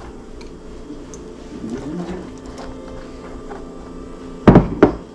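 A steady low appliance-like hum, then two loud sharp knocks a fraction of a second apart about four and a half seconds in.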